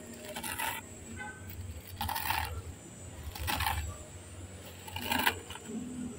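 Crisp, air-dried moringa leaves crackling as fingers press and stir them, in four short bursts.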